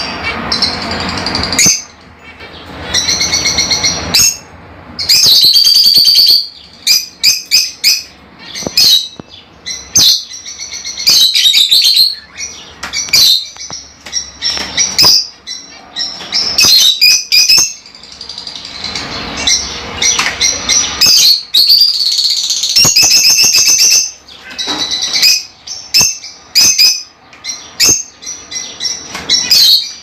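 Lovebirds calling: loud, high-pitched chirps and squawks coming in quick bursts with short gaps between.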